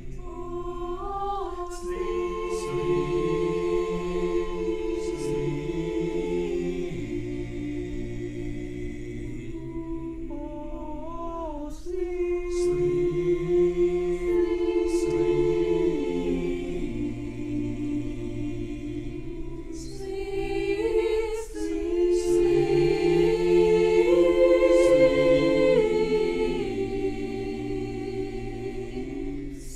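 A choir singing unaccompanied in several parts, holding long chords in slow phrases with short breaks between them, swelling loudest near the end.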